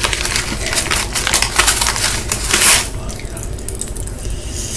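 Crinkling and rustling of a Fun Dip candy packet being handled, a dense run of small crackles that eases off about three seconds in.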